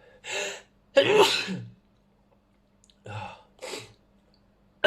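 A person sneezing: a quick breath in, then a loud sneeze about a second in, followed by two shorter, quieter bursts around three seconds and the sharp start of another sneeze at the very end.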